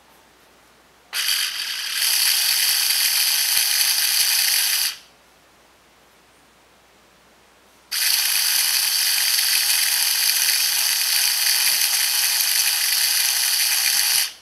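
Electric power drill running in two steady bursts, about four seconds and then about six seconds, with a short stop between them, spinning a phaco tip to polish it.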